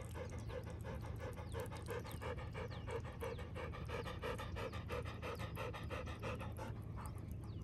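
Yellow Labrador retriever panting hard after swimming, a steady rhythm of about three breaths a second that stops near the end.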